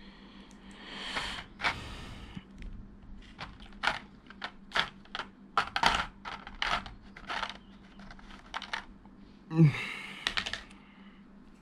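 Clear plastic blister trays and small plastic figure parts clicking and crackling as optional hands are picked out of the tray: a run of about a dozen sharp, uneven clicks, with a louder plastic rustle about ten seconds in.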